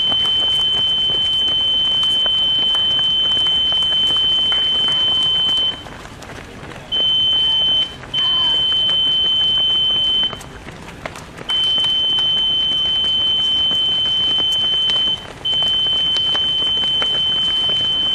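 Electronic beeper of a race chip-timing system at the finish mat, sounding one steady high tone that cuts out briefly four times. It sounds while runners' timing chips are being read as they cross the mat.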